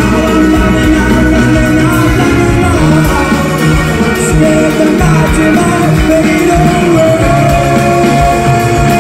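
Live rock band playing: male lead vocal over electric guitar, bass and drums, loud and full-band throughout, with a long held note near the end.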